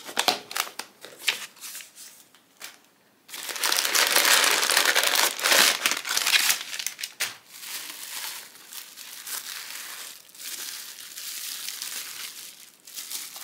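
Tissue paper and bubble wrap crinkling as hands unpack a small cardboard box of beads. Light rustles and taps at first, then a loud stretch of continuous crinkling from about three to seven seconds in, easing to softer rustling.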